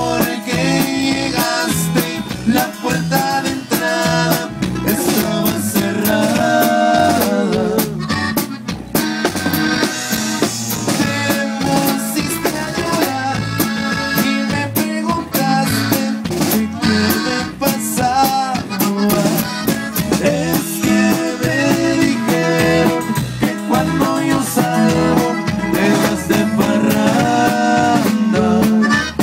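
Live band playing an instrumental passage, with a drum kit keeping the beat under a melody line.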